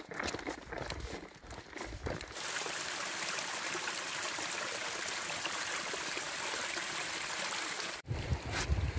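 Footsteps on a trail for about two seconds, then the steady rush of a stream of running water. Near the end it cuts to wind buffeting the microphone.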